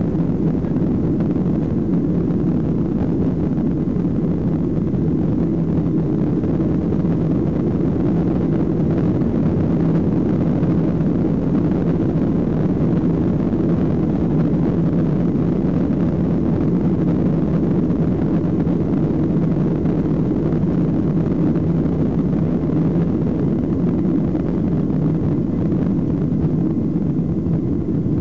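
Boeing 737-800's CFM56-7B turbofan engines at takeoff power, a loud steady roar heard from inside the cabin, with the rumble of the takeoff roll on the runway.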